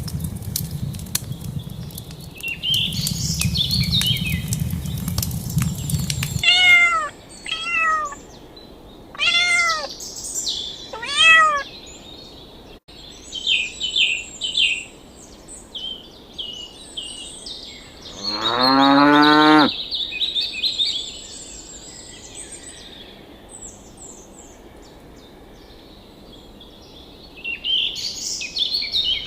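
A cat meows four times, each call rising and falling, then a cow moos once, about 18 seconds in, with short high bird chirps around them. The first six seconds hold a low rumble.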